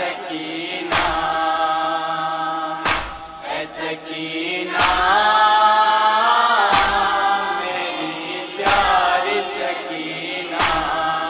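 Male mourners chanting a noha together in a long, wavering held melody, over unison chest-beating (matam) strikes that land about every two seconds, six times.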